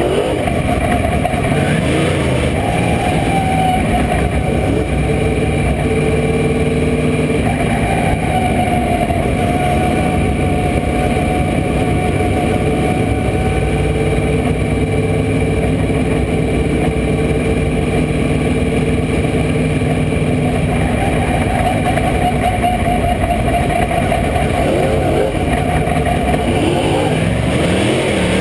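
Dirt late model race car's V8 engine running loudly, heard from inside the cockpit, its pitch rising and falling a little as the throttle changes.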